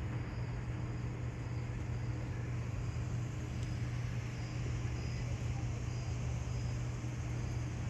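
Steady outdoor ambience: a constant low hum under a wash of noise, with crickets chirping faintly in short, regularly repeated high pulses.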